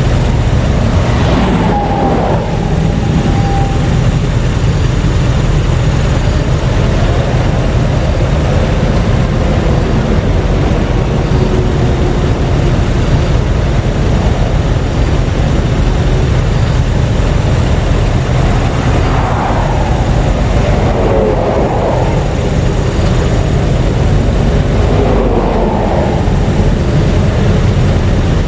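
Heavy interstate traffic: a steady low road rumble, with individual vehicles swelling and fading as they pass close by, once near the start and a few times near the end.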